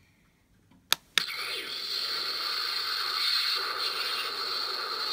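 Light-and-sound Hallmark Christmas ornament of Harry and Voldemort dueling being set off: two clicks about a second in, then a steady electronic spell sound effect from its small speaker as the wands light up.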